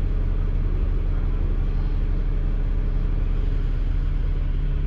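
Dennis Enviro500 MMC double-decker bus engine running steadily, heard from inside the bus as a constant low drone. The pitch gives a slight shift about four seconds in.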